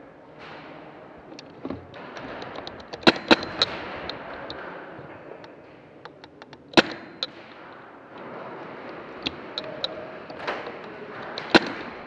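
Airsoft guns firing during a game: irregular sharp cracks, a few loud ones among many fainter ticks of shots and BBs striking.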